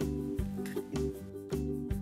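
Background music: a light tune with a steady beat, its notes changing about twice a second over a bass line.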